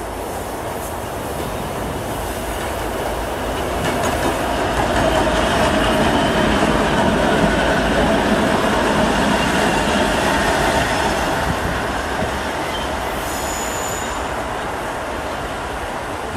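Two-section 2M62U diesel locomotive running past, its noise growing louder to a peak about halfway and then fading.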